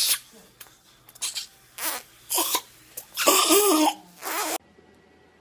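Dental saliva ejector sucking at the mouth in a run of short, noisy hissing bursts, with a gurgling vocal sound through the suction about three seconds in; it cuts off suddenly a little over four and a half seconds in.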